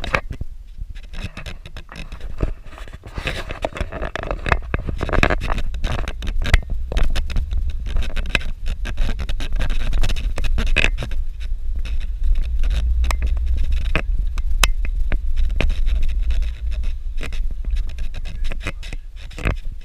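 Vehicle travelling over a rough dirt road: a steady low rumble throughout with many knocks and rattles.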